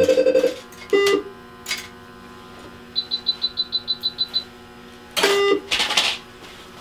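Electrosurgical (electrocautery) unit sounding its activation tones as the pencil is keyed: a short pulsing tone at the start, a brief steady tone about a second in, and another just past five seconds. A quick run of high beeps in the middle and a short hiss after the last tone.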